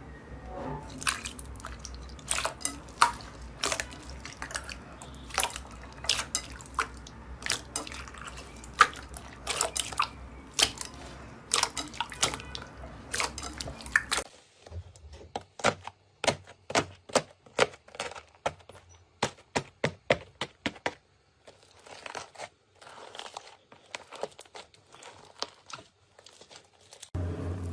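Slime being squeezed and worked by hand, making rapid, irregular sticky pops and clicks. About halfway through, a low background hum stops and the popping carries on over a quieter background.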